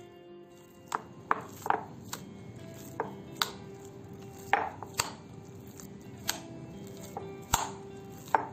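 Hands kneading raw ground meat in a glass bowl: about a dozen sharp, irregularly spaced wet slaps and squelches as the meat is pressed and squeezed against the bowl.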